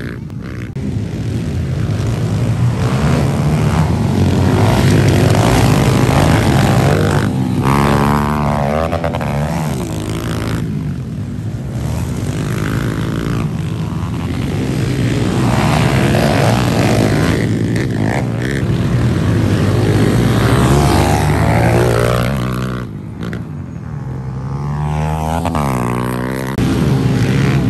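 Several pit bike engines racing past, revving up and down over and over, their pitch rising and falling as the bikes accelerate, shift and go by.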